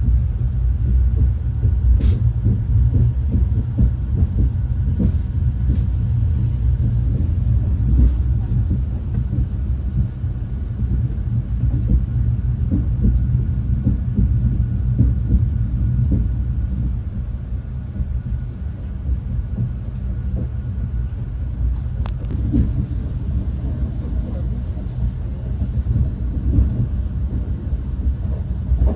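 Renfe Class 130 (Talgo 250) high-speed train running along the track, heard from aboard: a steady low rumble with frequent small knocks and two sharper clicks.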